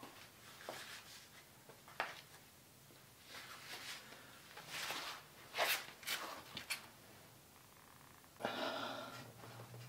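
Faint, scattered knocks, clicks and scrapes of hand work under a jacked-up car, with one sharp knock about two seconds in. Near the end a low steady hum comes in.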